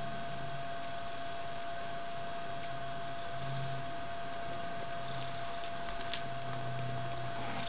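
Cat purring while nursing kittens, low and in waves that swell and fade with each breath, over a constant high-pitched hum. A faint click about six seconds in.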